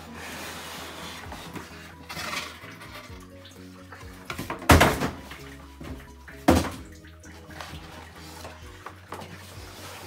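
Background music over the handling of packaging: rustling of a plastic bag and cardboard as a molded pulp insert is pulled from a box, with two loud bumps about two seconds apart near the middle.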